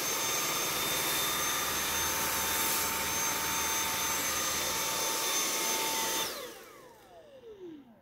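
Cordless stick vacuum with a soft-roller floor head running steadily over a tile floor, a high motor whine above the rush of suction. It is switched off about six seconds in, and the whine falls in pitch as the motor spins down.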